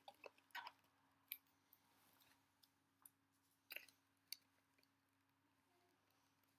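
Mostly near silence, with a few faint, scattered clicks of a hard plastic package being handled and pried at: several in the first second, then single ones a little after one second and near the middle.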